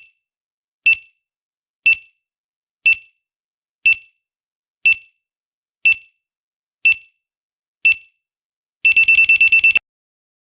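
Electronic quiz countdown timer beeping, one short high beep about once a second, ending in a rapid run of beeps near the end as the time runs out.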